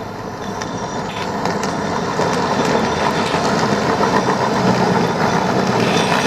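Hard plastic wheels of a toy car rolling fast down a paved hill: a continuous rattling rumble that builds over the first couple of seconds and then holds steady.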